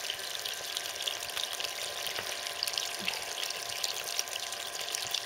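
A small stream of water pouring and splashing over stones: a steady splashing with many small crackles.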